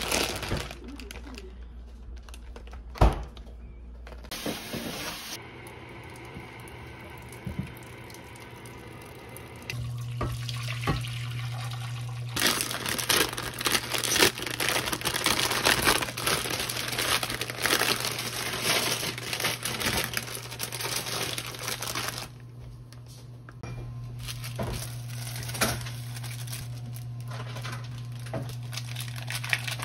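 Crinkling and tearing of a plastic instant-ramen pouch as hands handle it and rip it open, in several separate stretches, heaviest in the middle, with a sharp knock about three seconds in and a steady low hum underneath.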